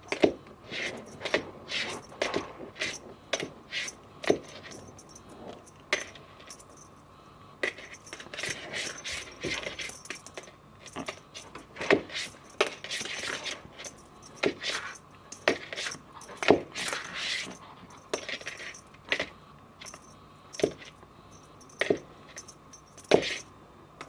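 Irregular sharp clicks and light metallic jingling, a few a second, coming in short runs with pauses between.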